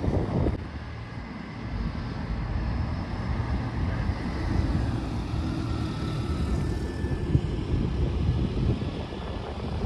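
Cars rolling slowly past, a steady low engine and exhaust rumble with no single loud pass.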